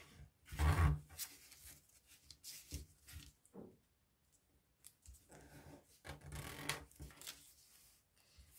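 Sheet of origami paper being folded into a cabinet fold and creased by hand: irregular crackling rustles and rubbing strokes as fingers press along the folds, with a dull thump about a second in.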